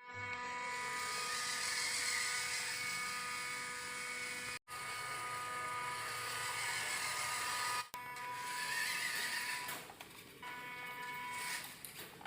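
Small electric motors and gears of radio-controlled model vehicles whirring steadily, broken by two abrupt cuts, one about halfway through and one about two-thirds in.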